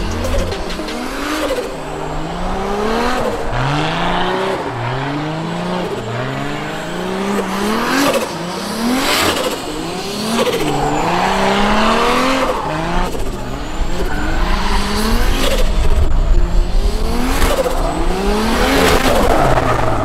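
Toyota Verossa drift car's 2JZ straight-six, tuned to about 500 horsepower, revving up again and again, its pitch climbing in short repeated sweeps about once a second as the throttle is worked through a drift. Tyres squeal under wheelspin, loudest around the middle and near the end.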